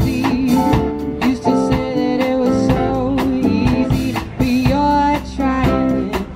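Live pop-rock band playing a song: electric and acoustic guitars, keyboard and drum kit keeping a steady beat, with a lead vocal.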